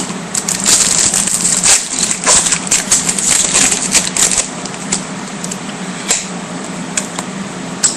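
2009 Bowman Chrome trading cards being handled and flipped through, a quick run of small clicks and rustles for the first four seconds or so, then a few scattered clicks.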